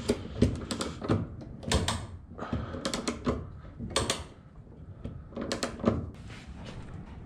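Irregular metallic clicks and clanks from the chain hoist of a boat lift and its hanging chain being worked, thinning out after about six seconds.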